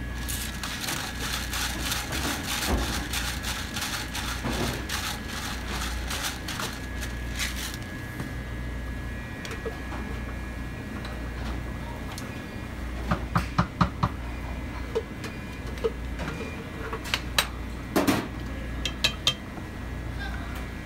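Oil crackling and sizzling in a hot stainless steel frying pan for the first several seconds, over a steady kitchen hum. Later come a quick run of sharp metallic clinks, then a few more, from utensils knocking on the pan and on metal containers.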